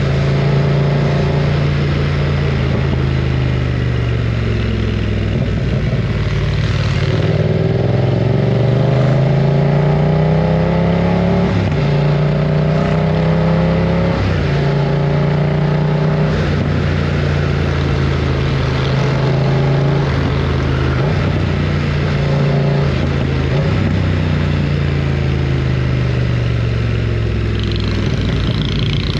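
BMW F900 R's parallel-twin engine and exhaust running loud under way. The pitch climbs as the bike accelerates, drops sharply at each gear change, and mostly holds steady between shifts.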